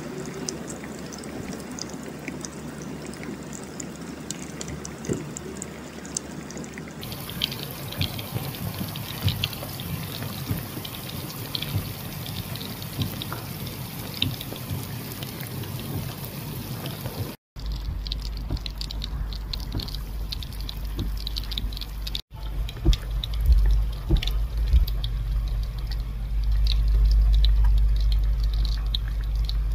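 Heavy rain pouring down, then muddy flash-flood water rushing in a shallow torrent over stones and ground. Over the later part a loud low rumble of wind buffets the microphone, loudest near the end.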